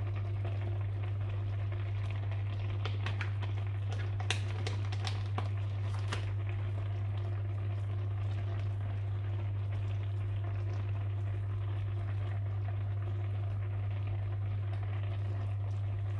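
Fish stew in an evaporated-milk sauce simmering gently in a frying pan, with soft bubbling pops. Under it is a steady low hum.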